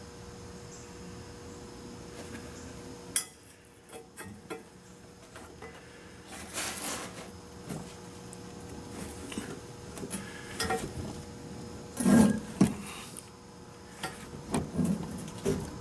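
Wrench on a nut welded to a broken stainless bolt in an exhaust manifold flange, worked back and forth to free the bolt: scattered metallic clicks and scrapes, with two louder knocks about three-quarters of the way through. A steady hum stops with a click about 3 seconds in.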